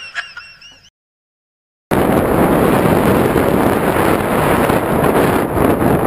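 Loud, steady wind rushing and buffeting over a camera microphone during a tandem skydive under an open parachute. It cuts in abruptly about two seconds in, after a moment of dead silence.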